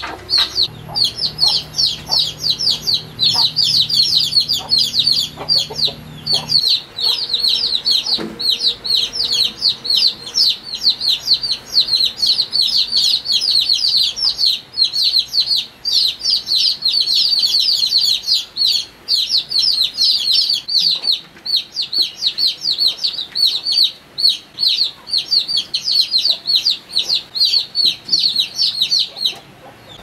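Chicks peeping, a dense unbroken stream of short high chirps, several a second, that stops suddenly near the end. A low steady hum lies under it for the first six seconds or so.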